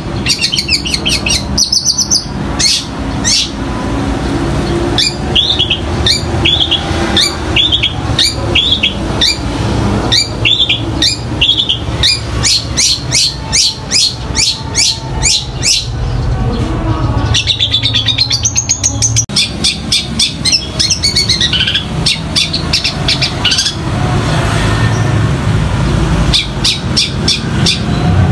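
Long-tailed shrike singing fast runs of sharp chips, down-slurred notes and trills, mimicking the chatter of fighting tree sparrows, over a steady low rumble.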